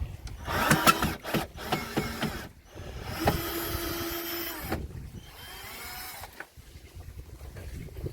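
Shed panels creaking and scraping as they are shifted and pulled apart, with squeals about half a second in, a longer held scrape in the middle and a few falling creaks after it.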